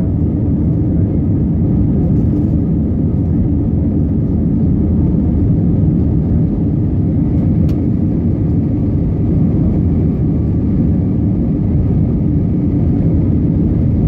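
Airbus A321 cabin noise heard from inside the passenger cabin during the climb after takeoff: the jet engines and the airflow make a loud, steady, low rumble.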